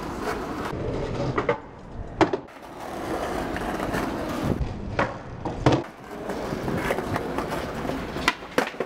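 Skateboard wheels rolling over paving slabs, broken by a handful of sharp clacks of the board hitting the ground.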